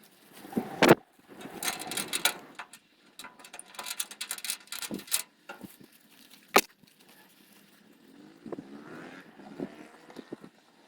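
Handling noises: scattered knocks and clunks with bursts of rustling, the sharpest knocks about a second in and about six and a half seconds in.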